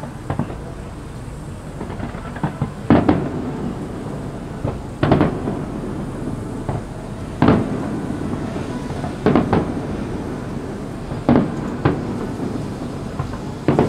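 Aerial firework shells bursting in a series of about eight loud booms, one every one to two seconds, with a few smaller pops early on and a rumbling haze of noise between them.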